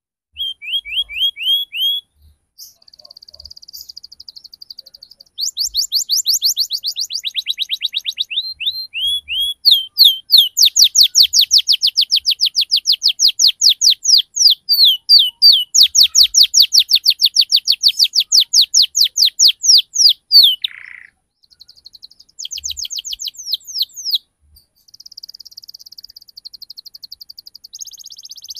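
Canary singing a rolling song: fast trills of repeated down-slurred high notes, with a long unbroken roll through the middle and shorter, buzzier trills after a brief pause near the end.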